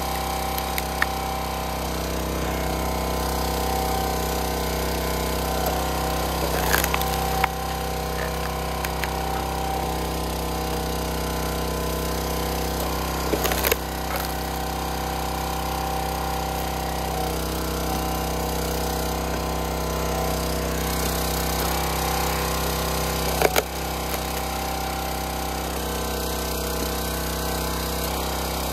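Gas engine of a County Line 25-ton hydraulic log splitter running steadily as it drives the ram, with three sharp cracks as logs split on the wedge.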